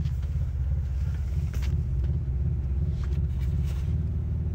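Side-by-side UTV engine idling steadily: an even, low rumble heard from inside the vehicle, with no revving.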